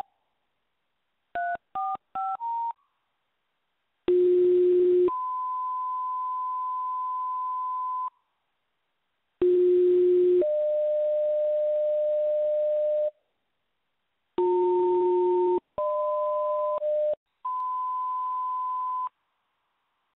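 Fire dispatch radio paging tones: a quick run of short keypad-style dual-tone beeps, then a series of two-tone sequential pages, each a short low tone followed by a longer, higher steady tone, with brief silences between them. The tones alert the called fire stations to listen for the dispatch.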